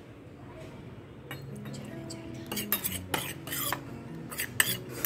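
Metal spoon clinking and scraping against a small stainless-steel bowl while stirring food colouring into water to dissolve it. Quiet at first, then a run of quick, sharp clinks from about a second and a half in, growing busier toward the end.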